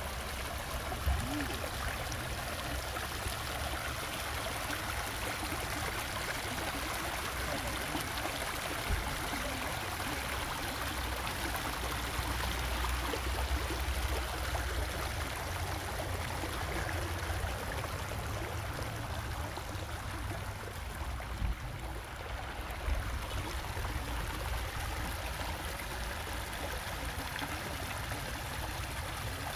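Shallow brook running over stones and rocks, a steady rushing babble, with a low rumble underneath.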